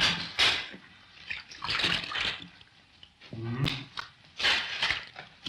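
Bread dough being kneaded by hand in a wooden trough: a series of irregular strokes, about one a second, with a short lower-pitched sound about three and a half seconds in.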